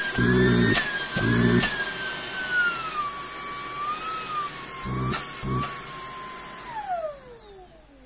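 ONVO cordless stick vacuum's motor running with a high whine whose pitch wavers and sinks over a few seconds. Near the end it is switched off and the whine glides down as the motor spins down, with a few sharp clicks along the way.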